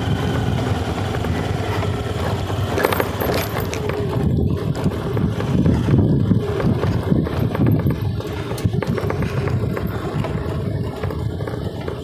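A vehicle driving along a rough, rutted dirt track: a steady low engine rumble with uneven jolts and a few knocks as it goes over the bumps of the broken road.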